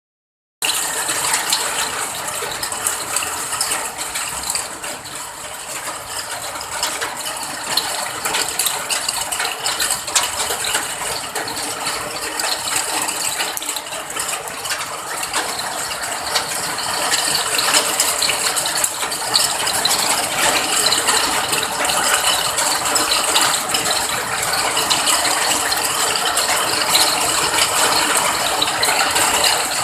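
Steady rain falling, a dense mass of many small drops clicking, starting a moment in after a brief silence.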